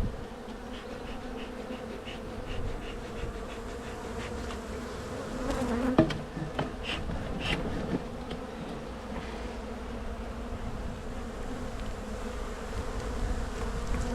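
Honey bees humming steadily from an opened hive colony. A sharp knock comes about six seconds in, with a few lighter ticks around it.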